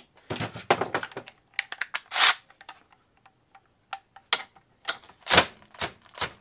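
Irregular metal clicks and knocks as a Milwaukee M12 Fuel cordless ratchet and its socket are handled and fitted onto a bolt clamped in a bench vise. The loudest knocks come about two seconds in and again past five seconds.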